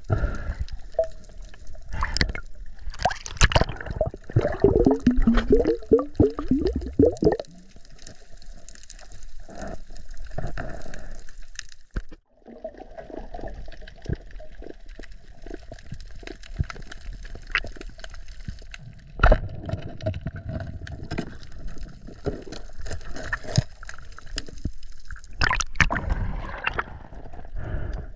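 Water gurgling and sloshing, with scattered knocks and a low rumble, breaking off briefly about twelve seconds in.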